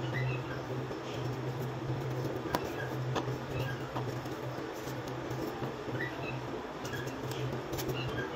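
A steady low hum with a hiss, faint high chirps now and then, and a few light ticks as a kitchen knife cuts through a tomato held in the hand.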